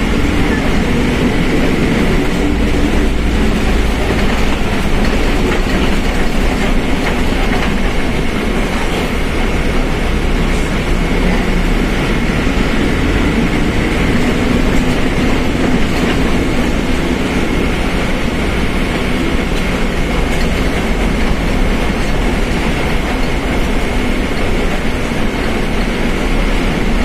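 Mercedes-Benz OF1721 BlueTec 5 bus running on the road: steady diesel and ride noise with a thin, steady high whine, the differential droning loudly.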